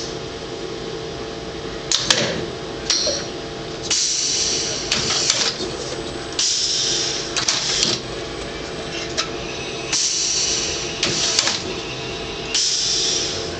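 Pneumatic packaging machine cycling: about six short hisses of compressed air from its three-way solenoid valves and air cylinders, with sharp clicks, over a steady machine hum.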